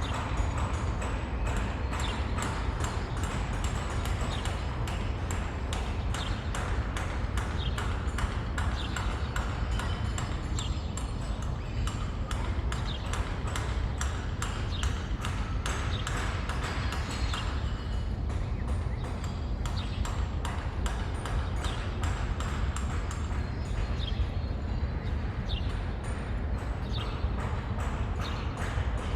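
City street ambience: a steady low rumble under a constant stream of short, sharp clicks, with brief high chirps now and then.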